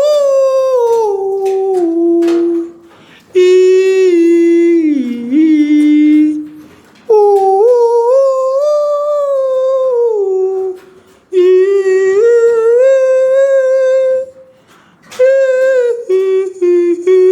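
A man humming long, drawn-out notes in five phrases of a few seconds each, the pitch sliding down or rising and falling within each, with short breaks between. It is a call that a poultry keeper makes at resting chickens to check from afar that they are healthy: healthy birds react with a movement of the head.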